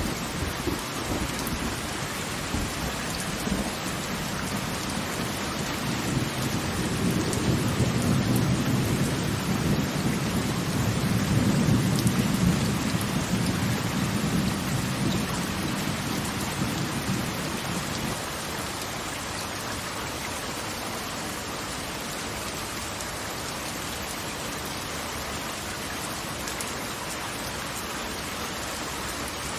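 Steady rushing hiss of falling water. A deep low rumble builds over several seconds, peaks about halfway through, and dies away by about two-thirds of the way in, leaving the even hiss.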